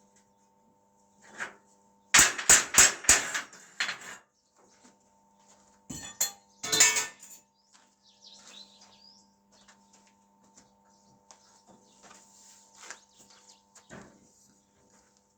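Sharp metal knocks and clanks: a quick run of about six strikes about two seconds in, a couple more some four seconds later, then scattered light clicks and taps over a faint steady hum.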